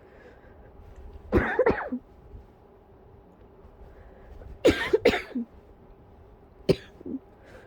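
A person coughing muffled into a pillow, in three bouts: a short run of coughs about a second and a half in, a harder run of several coughs about five seconds in, and a single cough near the end.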